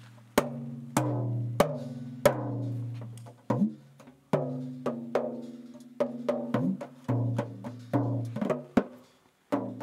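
Mini timbales with skin heads, tuned to a low range and struck by hand in an uneven pattern. Each stroke leaves a low, wavering ringing tone, some bending in pitch.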